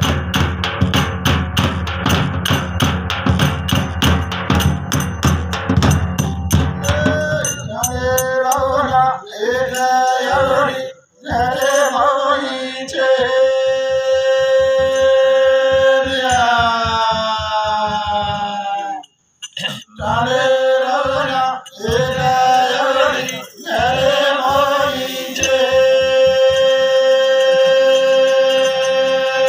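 Two large laced pot-shaped drums played in a fast, steady beat, which stops about seven seconds in. Men's voices then sing a devotional song in drawn-out phrases, holding long notes, with hardly any drumming behind them.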